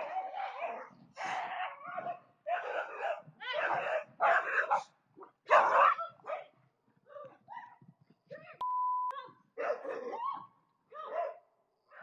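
A dog barking repeatedly, about once a second, with a short steady beep about two-thirds of the way through.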